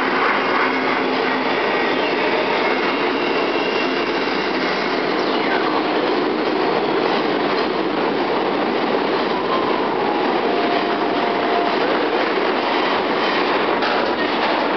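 Subway train running through the station: a steady, loud rolling clatter of cars on the rails, with thin wheel squeals now and then.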